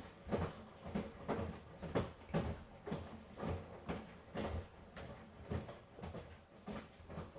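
Miele washing machine drum turning with a load of laundry, giving a run of soft, uneven thumps and swishes about two a second.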